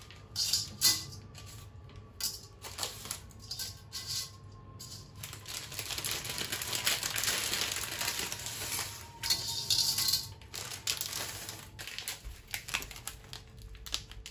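Dry spaghetti being handled and laid into a frying pan: light clicking and clattering of the stiff strands, with the plastic pasta bag rustling.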